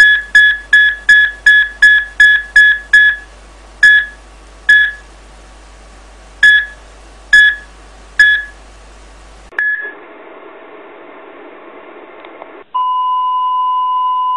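Cardiac monitor beeping with each heartbeat, nearly four beeps a second at first, then slowing to irregular beeps about a second apart and stopping. After a few seconds of hiss, a steady unbroken flatline tone starts near the end: the sign that no heartbeat is detected.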